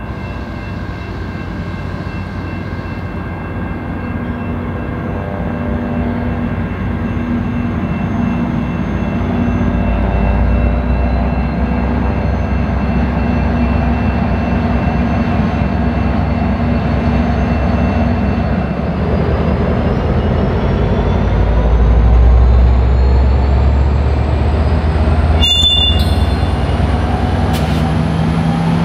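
Diesel-hauled train running by, its engine hum and rail rumble growing louder over the stretch. A brief sharp sound cuts in about twenty-five seconds in.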